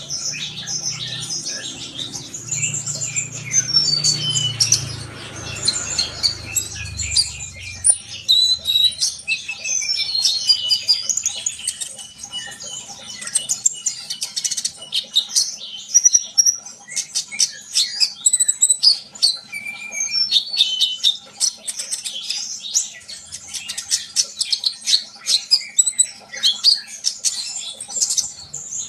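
A konin sunbird (brown-throated sunbird) singing non-stop: a dense, rapid stream of sharp, high chirps and twittering trills. A low rumble sits under the song for the first several seconds.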